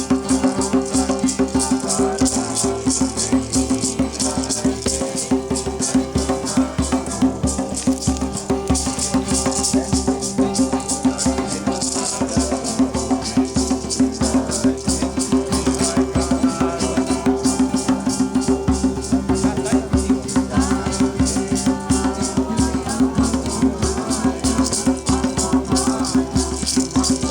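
Hand rattle shaken in a fast, steady rhythm over a steady low drone, with a wavering melody above it: ritual music.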